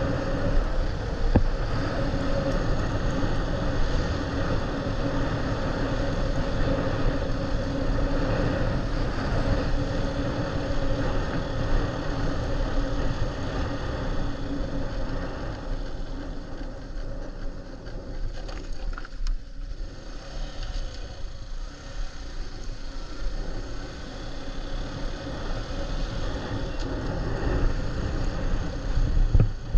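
Motorbike engine running with wind rushing over the microphone, a steady noise that eases off for a few seconds midway.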